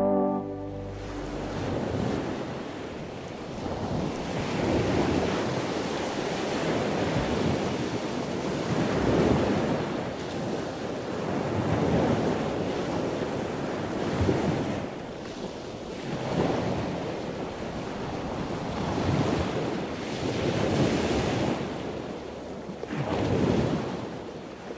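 Wind rushing over a camera's microphone, a muffled noise that swells and eases every couple of seconds.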